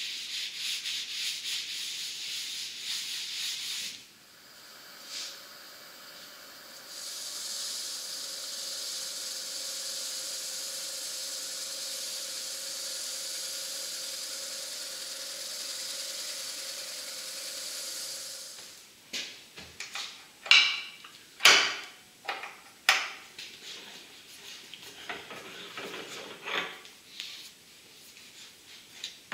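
Cloth rubbed in quick strokes over a wooden bowl. Then a Record Power wood lathe runs with a steady motor hum while wood shavings are pressed against the spinning ash bowl, hissing as they burnish it. From about 19 seconds in there is a series of sharp knocks and clatters of the bowl and metal chuck being handled and taken off the lathe.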